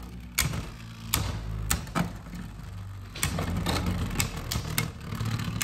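Two Beyblade Burst spinning tops, Turbo Achilles and Chozy Achilles, whirring in a plastic stadium. They clash with about ten sharp plastic clicks at uneven intervals.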